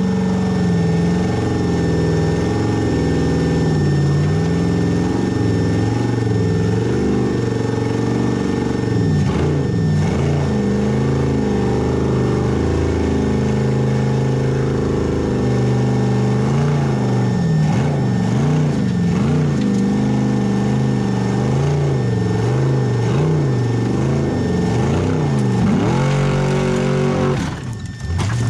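Formula offroad race car's engine revving hard, its pitch rising and falling again and again as the throttle is worked, with a brief drop in power near the end.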